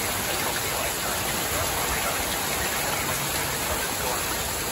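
Heavy rain pouring down steadily in a severe thunderstorm.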